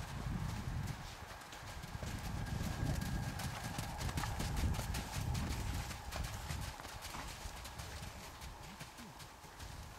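Hoofbeats of a black foal and a dark bay horse trotting on a sand arena, growing fainter toward the end as they move away.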